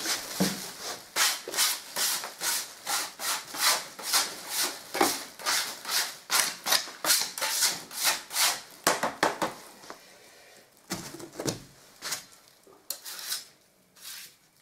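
Leftover undercoat plaster being scraped off a wooden plastering board into a rubbish sack: quick rasping strokes, about three a second, stopping about nine and a half seconds in, then a few scattered scrapes and knocks. This is the board being cleaned off before the plaster dries on it.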